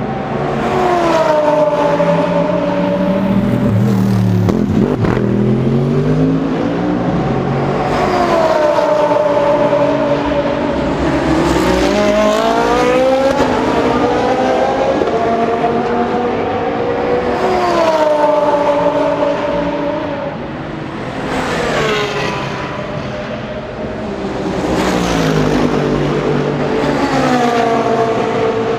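GT3 race cars accelerating out of the pit lane and passing one after another, about seven in all, each engine note climbing through the gears and then falling away as the car goes by.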